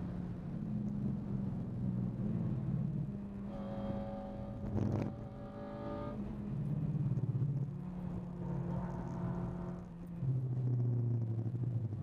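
Honda DC5 Integra Type R's 2.0-litre K20 four-cylinder engine, with a Gruppe M air filter, running hard under load, heard inside the cabin. The revs rise and fall through the corners over the rumble of the tyres, with a single sharp knock about five seconds in.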